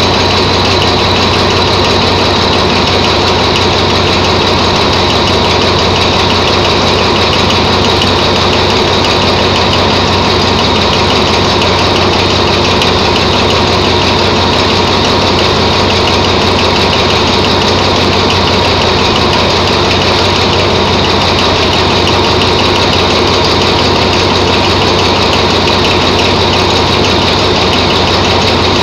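Diesel locomotive engine idling steadily at close range, a deep, even drone with a thin steady high whine over it.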